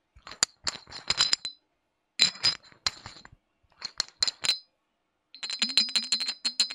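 Thick resin stopper of a glass perfume-oil bottle being twisted, giving four runs of rapid clicks with a light glassy ring. A low hum sounds under the last run.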